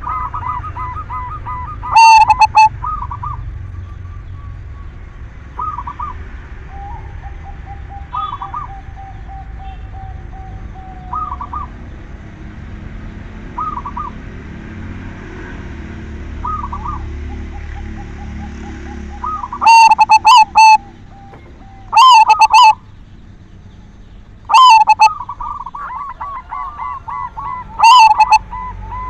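Zebra dove (silver perkutut) cooing its song over and over: five very loud phrases close to the microphone, about 2 s in and then four more in the last ten seconds, with softer coos every two to three seconds between them.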